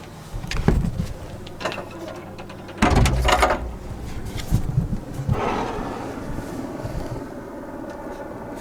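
Rustling and knocks close to the microphone, loudest about three seconds in, over a faint low rumble of a helicopter far away.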